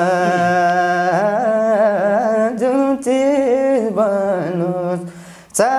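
A voice singing a long wordless, ornamented melody over a steady low drone. The singing fades near the end and then comes back in abruptly.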